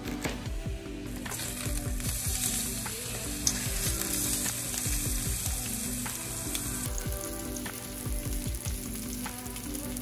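Salmon fillets sizzling as they sear in hot oil in a pan. The sizzle grows louder about a second in, as the fillets are turned with tongs, and then holds steady.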